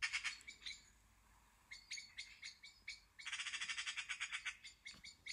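Eurasian magpie chattering: scattered short, harsh notes, then about three seconds in a fast, even rattle of about a dozen notes a second lasting a second and a half.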